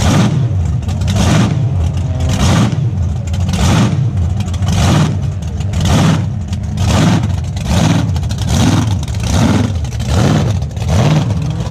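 Super loud Australian burnout car's engine revved hard again and again, about ten surges at roughly one a second, over a constant deep rumble.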